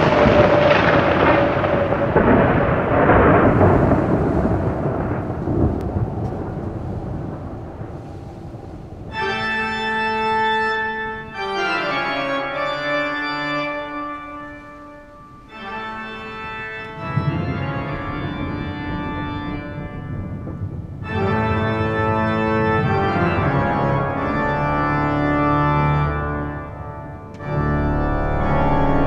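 Thunder rumbling and fading away over the first several seconds. About nine seconds in, organ music begins: sustained chords held for a few seconds each, changing several times.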